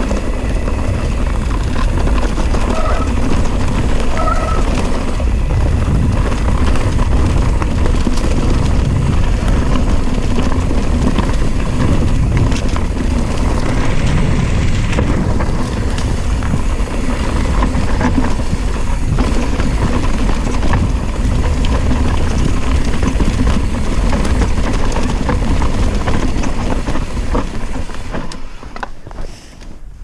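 Wind rushing over the microphone and a mountain bike's tyres and frame rattling over rocks and roots at speed on a rough downhill trail. The noise drops and turns uneven near the end.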